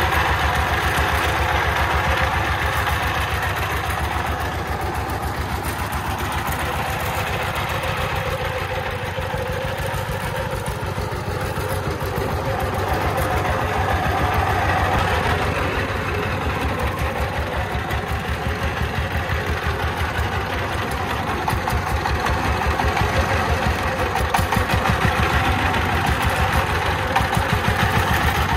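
Single-cylinder 24-horsepower diesel engine of a three-wheeled công nông truck, heard close up, running at low speed with a steady fast chugging. It gets a little louder in the last few seconds.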